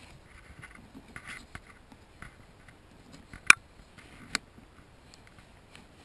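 A thin pry tool scraping and clicking against a metal clip that holds down vehicle floor carpet as the clip is pried up, with one sharp click about three and a half seconds in and a smaller one a second later.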